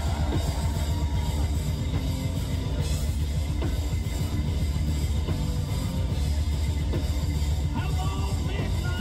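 Live rock band playing loud: a drum kit keeping a steady beat under electric guitars and heavy bass.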